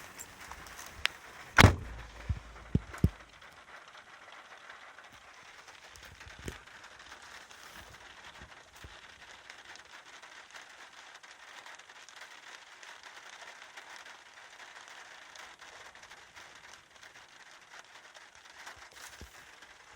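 Heavy rain falling as a steady hiss. A few sharp knocks sound about one to three seconds in, the loudest near the start of that run.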